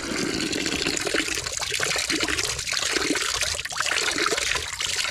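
Spring water running steadily from a small bamboo spout.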